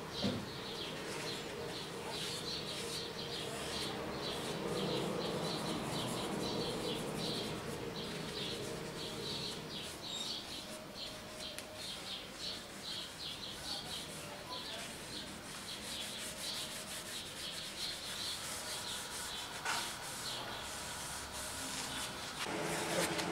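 A cloth rubbed back and forth over a rosewood knife handle with brass pins, polishing on a finish, heard as a steady scrubbing swish.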